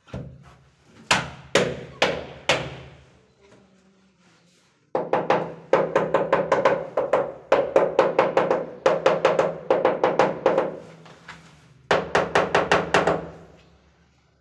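Large porcelain wall tile being struck with the flat of the hand to bed it into the tile adhesive: four single slaps, then two runs of rapid taps at about five a second, each tap ringing briefly.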